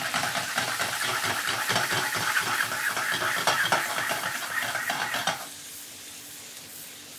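Diced potatoes with bacon, onion and sausage sizzling and clattering in a frying pan as the pan is tossed, full of small rattling knocks; this is the first toss of pan-fried potatoes whose underside is already golden brown. The noise stops about five seconds in, leaving a low steady hum.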